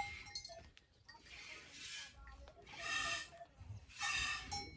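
Milk squirting from a cow's teats into a steel bucket during hand-milking, in repeated short hissing spurts about a second apart.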